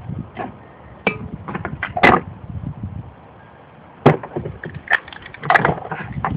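Spray paint cans knocking and clinking against each other and the table as they are handled and picked up, in about ten irregular sharp knocks. Wind rumbles on the microphone underneath.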